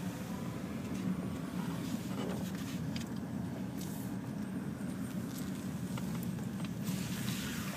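Car moving slowly, a steady low engine and road rumble heard from inside the cabin, with a few light clicks and a brief rise in hiss near the end.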